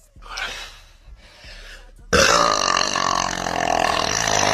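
A long, loud burp that starts about two seconds in and lasts over two seconds, after a short noisy breath-like sound near the start.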